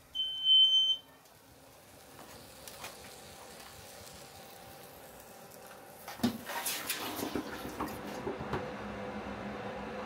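Smoke alarm sounding a high-pitched beep lasting about a second, set off by smoke from a silicone sleeve burning on molten aluminum. A clatter follows about six seconds in, then faint handling noise.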